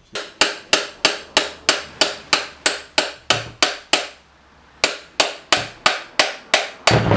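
Hammer blows on a steel punch driving a rust-seized drive pulley off a lawn tractor transaxle's input shaft: sharp, ringing metal strikes at about three a second, pausing briefly a little past halfway, then resuming. The pulley is starting to move.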